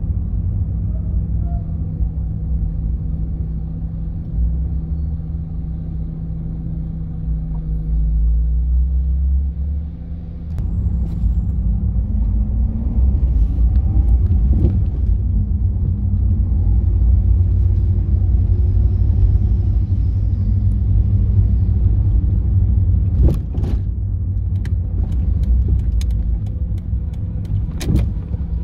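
Car engine and tyre noise heard from inside the cabin while driving, a steady low rumble that dips briefly about ten seconds in and then builds again. A few sharp knocks come near the end.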